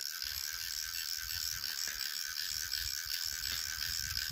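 A fishing reel is cranked while a fish is played on a bent rod. The reel is faint, over a low rumble and a steady high hiss.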